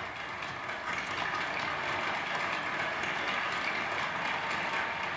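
Recorded theatre applause playing back as a sound effect: a dense, steady crowd clapping that swells slightly about a second in.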